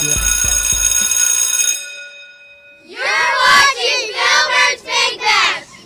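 A piece of music ends on a ringing held note that fades out. After a short pause, a group of children call out together in unison in several short phrases.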